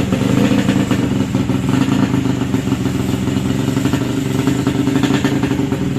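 Yamaha RX-King's 135cc two-stroke single-cylinder engine running steadily, freshly rebuilt.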